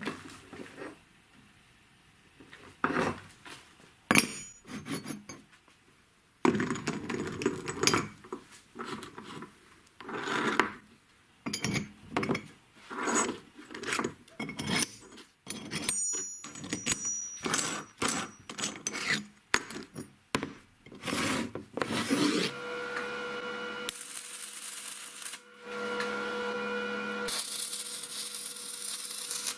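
Steel parts clinking and knocking as they are handled and set down on a wooden workbench: irregular sharp metal knocks. From about 22 seconds in a steady hum starts, and near the end a stick welder's arc crackles and hisses in two bursts of about two seconds each.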